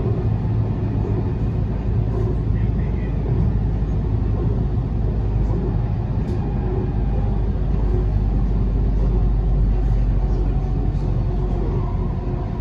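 Canada Line SkyTrain running along its elevated guideway, heard from inside the passenger car: a steady low rumble of wheels on the rails and the train's running gear.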